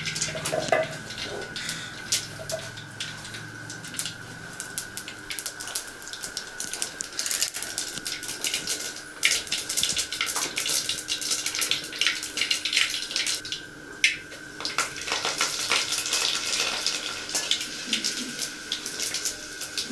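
Vaghar (tempering) in a steel pot: mustard seeds popping and spluttering in hot oil, with cumin and garlic sizzling. A dense, irregular crackle that thickens about halfway through and again near the end.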